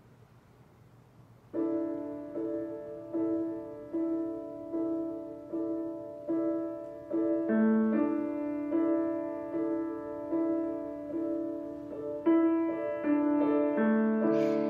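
Piano starting about a second and a half in, playing a slow, evenly paced tune in chords, each note struck and left to ring as the next comes.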